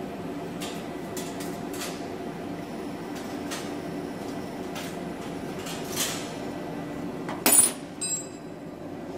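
CO2 laser cutting machine running while it cuts stainless steel: a steady mechanical hum with scattered short clicks, a brief loud burst about seven and a half seconds in, and a short ringing tone right after it.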